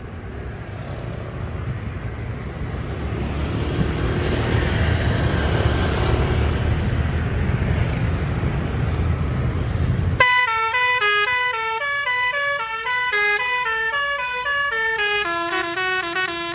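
A heavy vehicle's engine and road noise rumble, growing louder over the first few seconds. About ten seconds in, the rumble stops abruptly and a telolet basuri multi-tone bus horn plays a tune of quick stepping notes.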